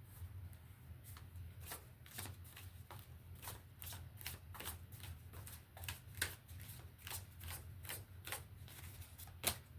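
A deck of oracle cards being shuffled by hand: a run of quick, irregular card snaps and slides, with one louder snap near the end.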